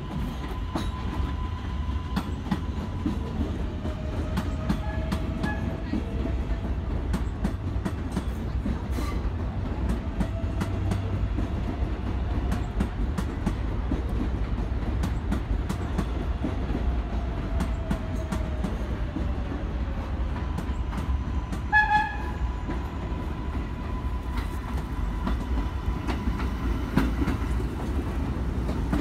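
New York City subway trains running through an elevated station: a continuous low rumble with many sharp wheel clicks over rail joints, and a brief horn blast about two-thirds of the way through. Near the end, a stainless-steel R32 train runs past close by.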